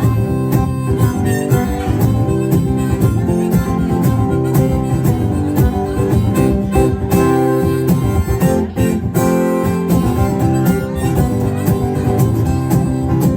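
Acoustic guitar strumming with a harmonica playing over it in a folk-blues instrumental passage with no singing.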